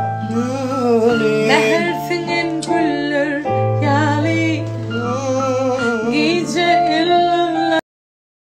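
A woman singing a Turkmen pop song with a wavering, held melody over steady instrumental accompaniment. The music cuts off suddenly near the end.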